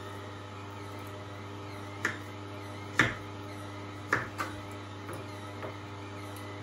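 Kitchen knife cutting pears on a wooden chopping board: a handful of sharp knocks of the blade against the board, the loudest about three seconds in, over a steady low hum.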